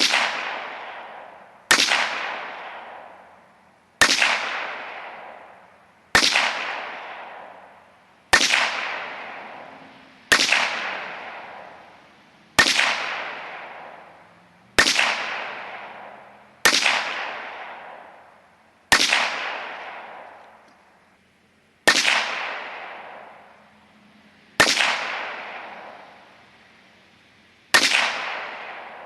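Glock 34 9mm pistol fired thirteen times in slow, steady succession, a shot about every two seconds. Each report trails off in an echo lasting a second or two.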